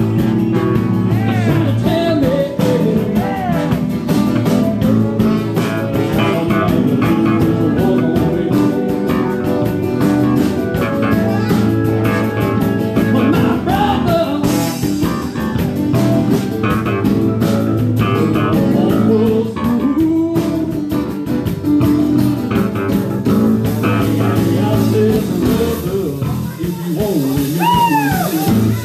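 Live blues-rock band playing a jam: electric guitar and bass guitar over a drum kit, with bent, sliding guitar notes and a voice singing.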